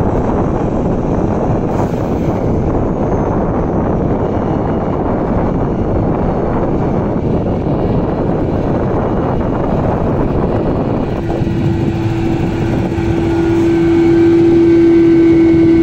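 A Krone BiG X 1100 self-propelled forage harvester and a Fendt tractor hauling a forage wagon run under load as they chop maize, making a dense, steady rumble. About eleven seconds in, a steady high whine from the harvester comes in, and it grows louder near the end as the machine comes close.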